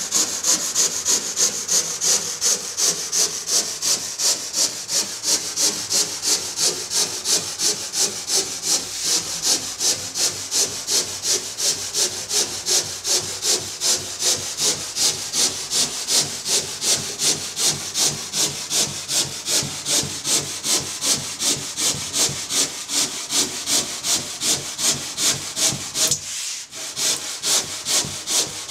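Stanley SharpTooth handsaw cutting through a foam surfboard blank along the outline, in quick even strokes, about three a second, with a short break near the end.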